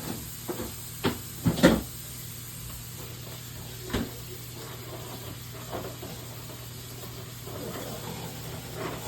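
A few sharp knocks and clatters from kitchen work, the loudest about a second and a half in and another near four seconds, with fainter handling noise later, over a steady low hum.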